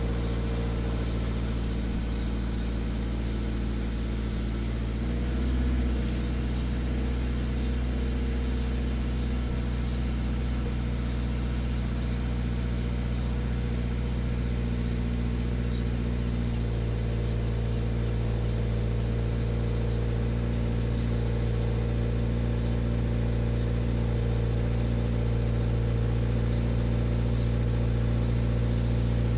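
Toyota GT86's 2.0-litre flat-four boxer engine idling steadily after a cold start, with the rattle that the car shows on cold starts. The idle note rises briefly about five seconds in and changes about halfway through.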